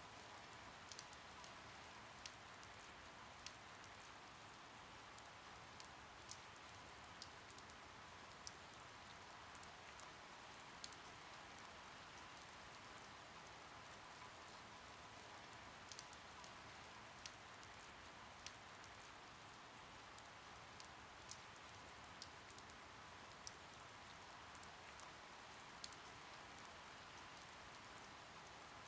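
Faint steady rain, an even hiss with scattered single drops ticking through it.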